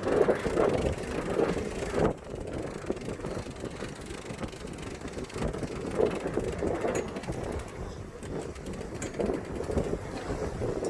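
Wind buffeting the microphone aboard a sailboat under way, coming in gusts, strongest in the first two seconds.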